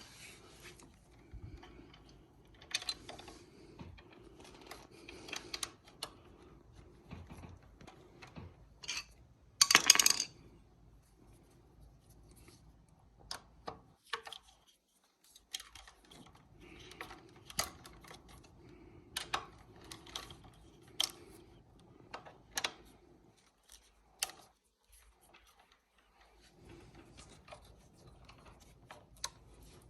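Hands handling e-bike brake parts and hose: scattered small clicks, taps and rubbing, with one loud clatter about ten seconds in.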